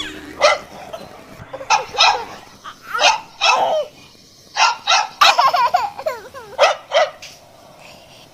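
Puppies yapping in short, high-pitched barks, about a dozen spread unevenly through, as in play-fighting.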